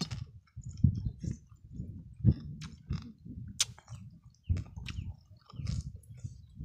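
A person chewing a mouthful of raw crab salad: uneven, wet chewing with a few sharp crunches, one near the start, one a little after two seconds and one about three and a half seconds in.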